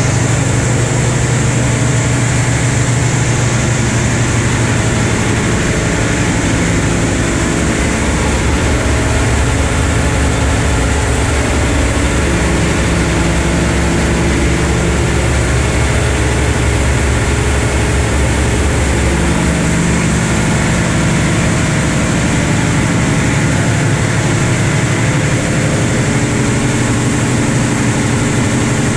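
Steady machinery din of a cargo ship's engine room with its diesel engines and generator running: a loud low hum under a dense, even hiss.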